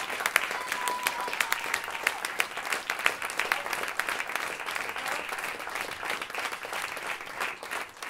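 Audience applauding, many hands clapping densely. A short, high whistle sounds over the clapping near the start.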